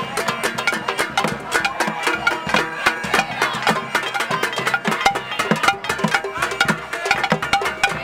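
Crowd noisemaking: many fast, irregular percussive strikes and bangs with held musical notes layered over them, loud and continuous.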